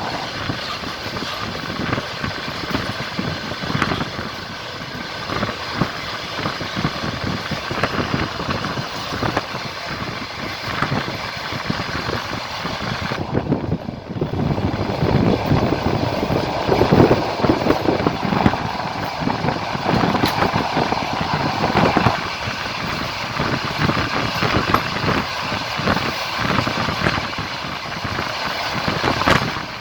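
Passenger train running along the track: a steady rumble and rattle of carriage wheels on the rails. The hiss thins out briefly about 13 seconds in, then the rumble grows louder for several seconds.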